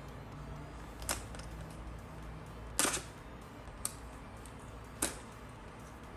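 Four sharp clicks from a cardboard box being handled and opened, the loudest a double snap about three seconds in.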